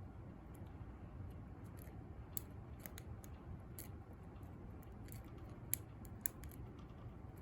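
Faint metallic ticks and scrapes of a lock pick working the pin stack of a Master Lock No. 1 padlock during picking, with a few sharper clicks about two and a half seconds and six seconds in.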